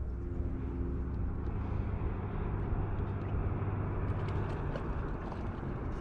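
Steady low rumble of wind buffeting the microphone on an open boat deck, with a few light ticks about four seconds in.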